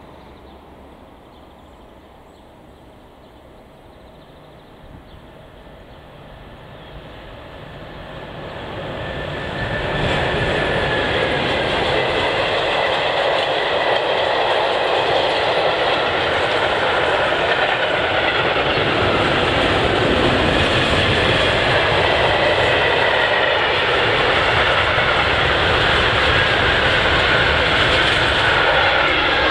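A freight train of empty stake wagons and hopper wagons approaching and passing close by, its wheels rolling on the rails. The sound grows from a quiet background over a few seconds and is a steady, loud rumble and rattle from about ten seconds in.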